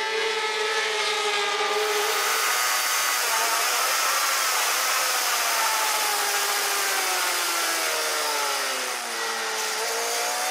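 Racing motorcycle engines: first a few J-GP2 bikes passing at speed, then, a couple of seconds in, one bike's four-stroke engine heard up close from on the bike under heavy wind rush. The engine note sinks for several seconds as the rider slows, then climbs again near the end as he accelerates.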